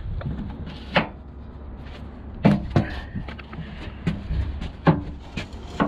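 Several sharp knocks and clunks, the loudest about one, two and a half and five seconds in, over a steady low rumble.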